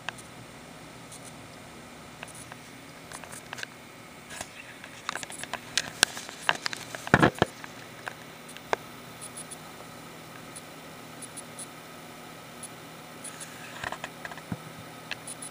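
Corsair AX750 computer power supply idling with no load, giving off a steady high-pitched noise that the owner takes for a sign the unit is dying. Clicks and scrapes from handling come over it, thickest about halfway through.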